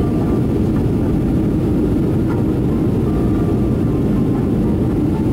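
Jet airliner cabin noise during the climb after takeoff: a steady low rumble of the engines and airflow, with faint steady whining tones above it.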